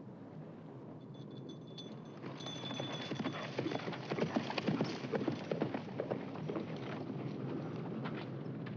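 Horses' hoofbeats, a dense irregular clatter that grows louder from about two seconds in and thins out near the end.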